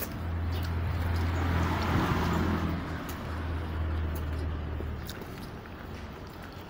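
A car passing on the street: engine hum and tyre noise build to a peak about two seconds in, then fade away by about five seconds.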